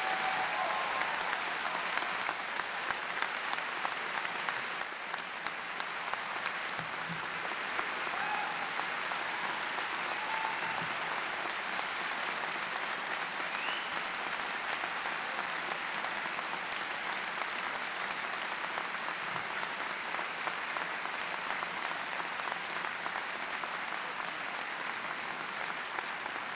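Large auditorium audience applauding steadily at the close of a speech, dense clapping with a few brief cheers in the first ten seconds or so.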